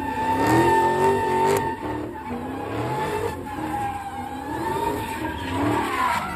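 Dodge Charger widebody's V8 revving up and down over and over while it drifts in circles, with a steady tire squeal from the spinning rear wheels.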